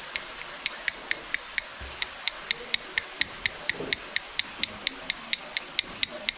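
Traditional hand-tapped tattooing: a wooden stick striking a bamboo needle holder against the skin in quick, even taps, about four a second, with a short break about a second and a half in.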